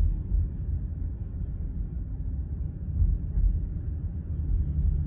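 Steady low rumble of a moving car heard from inside the cabin: engine and tyres on the road, with small swells in loudness.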